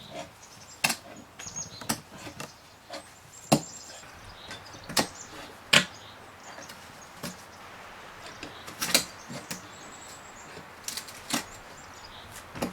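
A series of sharp knocks and clacks at uneven intervals, seven or eight in all, the loudest about three and a half, five and six seconds in.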